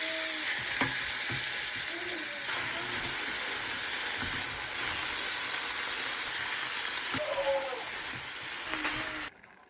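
Food sizzling steadily in a hot frying pan, with a few light clicks and squeaks from a utensil moving it; the sizzle cuts off abruptly near the end.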